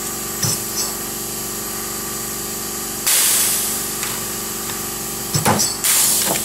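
Air-hydraulic pop-rivet gun pulling a rivet: two bursts of air hiss, about three seconds in and again near the end, with a few short clicks from the tool over a steady hum. A single pull does not break the mandrel off, so the gun's jaws release and take another bite for the next pull.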